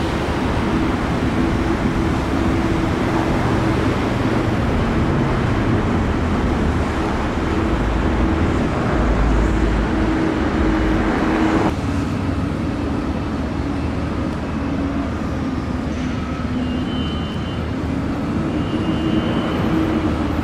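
Steady engine and traffic din at a construction site: a constant engine drone with a deeper rumble swelling in the middle, which drops away suddenly about twelve seconds in, leaving a lighter traffic hum.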